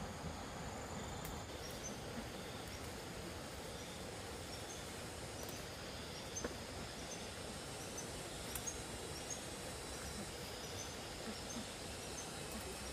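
Outdoor rural ambience: a steady hiss of background noise with short high chirps repeating about twice a second, and a single sharp click about six and a half seconds in.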